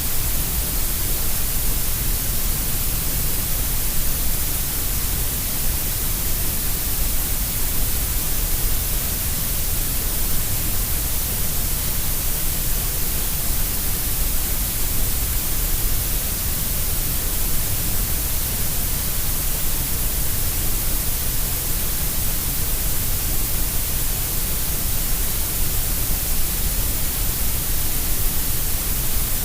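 Grey noise: a steady, even hiss shaped to sound equally loud at all pitches, with more in the deep and high ranges than in the middle.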